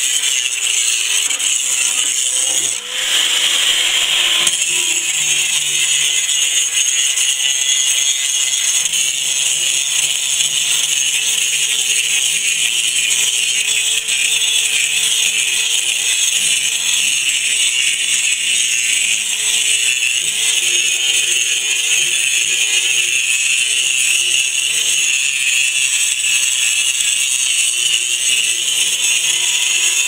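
A 4½-inch angle grinder with a grinding disc grinding heavy rust off the steel of a backhoe bucket. It makes a loud, continuous grinding hiss over the motor's whine, which wavers as the disc is pressed on and eased off, with a brief dip about three seconds in.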